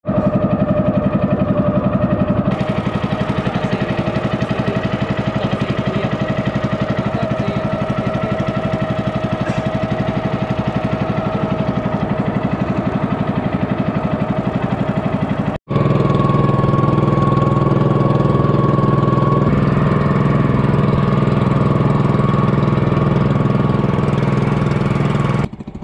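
Engine of a small motorized outrigger boat running steadily under way, loud and close. It cuts out for an instant about two-thirds of the way through and comes back deeper.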